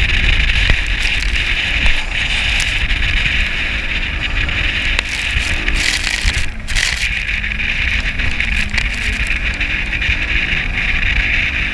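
Bass boat running at speed across open water: a steady rush of wind buffeting the microphone and water hissing past the hull, with the outboard motor's low drone underneath.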